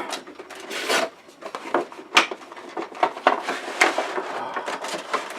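Toy packaging being handled and opened by hand: an irregular run of scrapes, rubs and sharp taps, the loudest tap about two seconds in.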